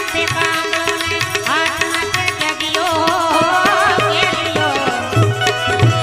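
Instrumental passage of a Gujarati devotional bhajan: tabla drumming under a melody from the Indian banjo. The deeper drum strokes come in louder near the end.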